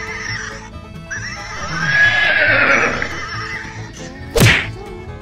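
A horse whinny sound effect over background music, then a single sharp crack near the end.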